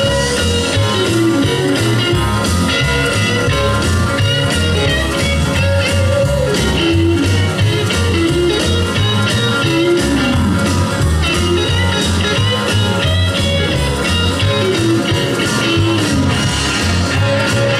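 Music with guitar and a steady bass beat.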